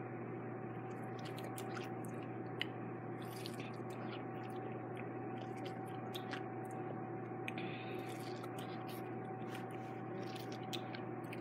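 Faint wet squishing and chewing as a lemon is bitten and sucked, scattered small mouth clicks over a steady electrical hum.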